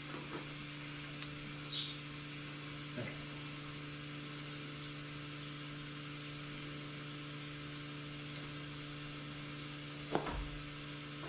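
Steady mechanical hum of barn machinery, with a short high chirp about two seconds in and a low thump near the end.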